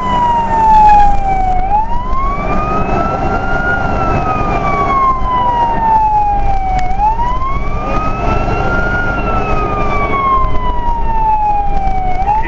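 Fire engine siren on a slow wail, rising over about two seconds and falling over about three, cycling round about twice, with the truck's engine and road noise steady underneath.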